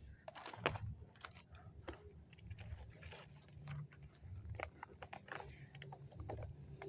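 Irregular crackling and rustling from the paper and leaves of a small fire, many short sharp crackles at an uneven pace.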